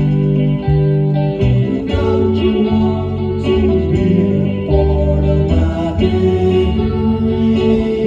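Background music: a guitar-led song with sustained bass notes.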